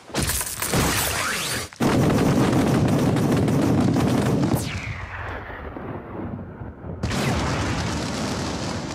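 Anime explosion sound effects for a character biting down on bullets in his mouth. A crackling burst comes first, then a long, loud rumbling blast about two seconds in that fades with a falling whoosh. A second noisy blast comes near the end.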